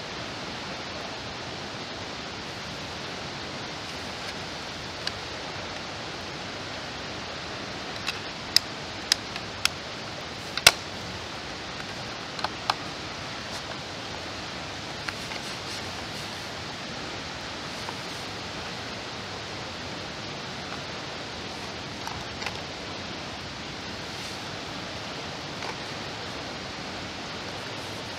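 Steady, even rush of water from the dam's spillway discharge; a handful of sharp clicks about eight to eleven seconds in.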